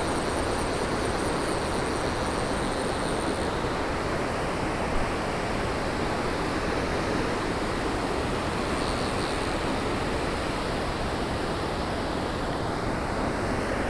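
Steady rushing of river water pouring over a low dam spillway and running through shallow riffles.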